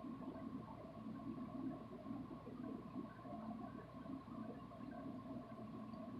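Faint sustained drone: steady held tones over a low, wavering hum.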